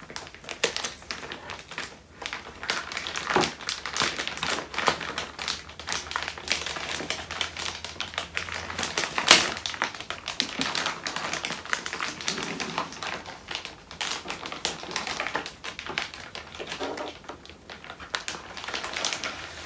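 A motherboard's plastic anti-static bag being handled and unwrapped: a dense, irregular run of crinkling and crackling plastic, with one sharper crack about nine seconds in.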